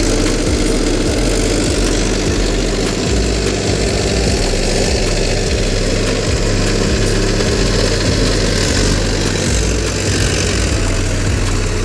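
Mahindra 475 DI SP Plus tractor's diesel engine running steadily while it drives a rear-mounted rotavator through the soil.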